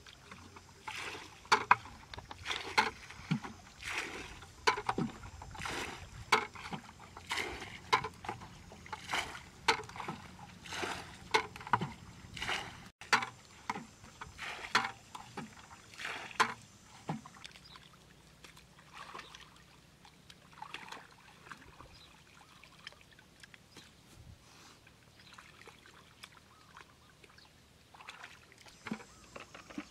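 Muddy water being bailed out of a shallow ditch with a plastic bucket: a quick run of scoop-and-throw splashes, under a second apart. After about 17 seconds the splashing stops and only faint sloshing in shallow water and mud is left.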